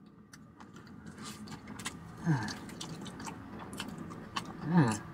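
A person chewing a crispy fried chicken wing with a honey hot glaze, the crust crackling and clicking in small, irregular bites. Twice, about two seconds in and again near the end, a short falling "mm" of approval is heard.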